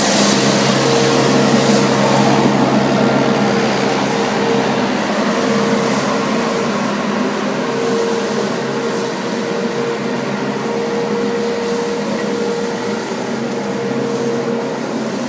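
Green Machine 636 compact suction sweeper running: a steady engine and suction-fan drone with a constant whine, growing a little fainter as the sweeper moves off.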